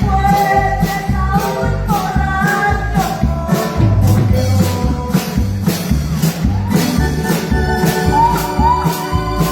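Keyboard-led music playing a song, with a steady beat of bright percussion strokes about three a second over a heavy bass.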